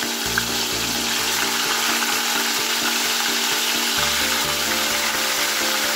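Raw chicken pieces sizzling steadily in hot oil in a wok, under background music.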